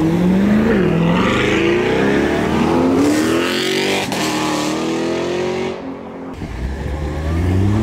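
A car accelerating hard away, its engine revving up and shifting through several gears, the pitch climbing and dropping back about once a second. Near the end a deeper engine starts building.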